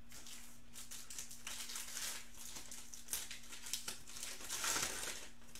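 Foil trading card pack crinkling in the hands as it is worked and opened, in a run of irregular rustles and crackles that swell a few times.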